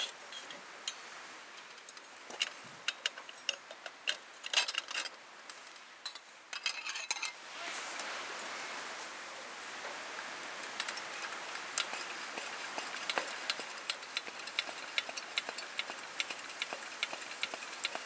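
Cooking sounds: light clinks and taps of utensils, then from about seven seconds in a steady sizzling hiss with many small crackles, as of food frying in a pan.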